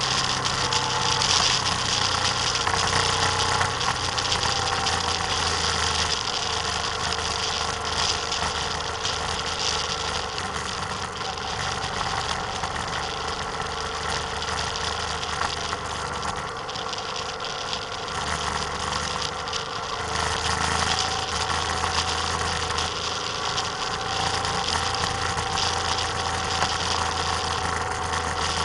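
A vehicle driving along an open road at a fairly steady speed: its engine running with a steady note that drifts slightly in pitch, under a constant rush of wind and road noise on a camera mounted on the outside of the vehicle.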